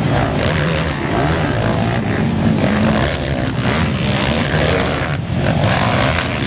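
Several racing ATVs' engines at once, revving hard and backing off, their pitches rising and falling over one another.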